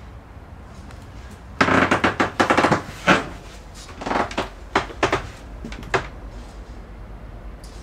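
Irregular knocking and clattering inside a locomotive cab: a dense run of clatter about a second and a half in, then single sharp knocks, over a low steady rumble.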